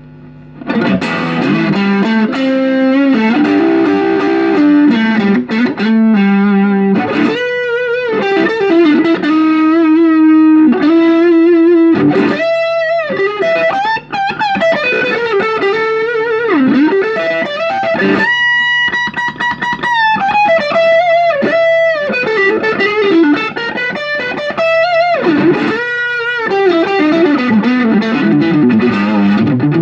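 Fender Stratocaster American Deluxe (Commemorative 50th Anniversary) electric guitar playing a single-note lead melody, starting about a second in, with string bends, wavering vibrato and some long held notes.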